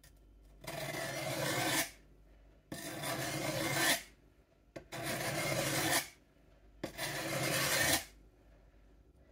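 Steel sheath knife being pushed along a sharpening stone in four slow strokes to sharpen its curved edge. Each stroke is a scrape of about a second that grows louder toward its end, with pauses of about a second between.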